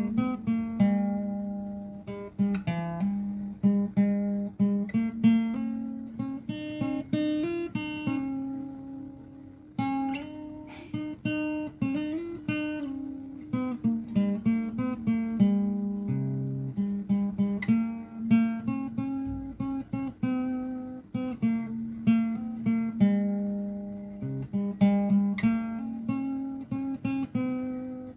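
Background music on acoustic guitar: a steady run of plucked notes.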